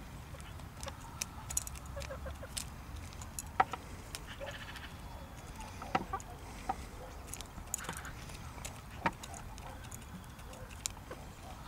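Hens pecking food from a ceramic bowl: irregular sharp taps of beaks striking the bowl, with soft clucking between them.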